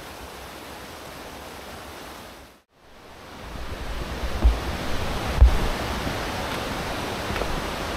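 Wind rushing over the microphone, getting louder after a short break, with heavy low buffeting and two sharp gusts about halfway through.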